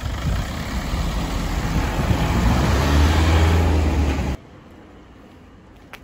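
Motor vehicle engine running with road noise, its low hum rising in pitch as it speeds up; it cuts off abruptly about four seconds in, leaving a faint steady background.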